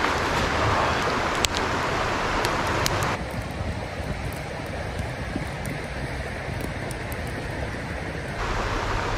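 Steady rush of a river with a wood campfire crackling, giving a few sharp pops. From about three seconds in until near the end the rushing sound drops back a little.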